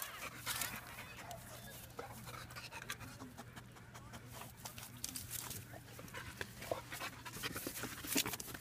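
Puppy panting and sniffing in short, irregular puffs, its head pushed down into a gap between rocks.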